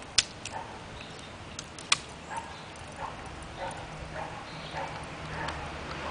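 Siberian Husky puppy tearing at a dry tree branch: two sharp twig snaps, the first at the very start and the second about two seconds in, with lighter cracks and brief whining sounds from the dog between them.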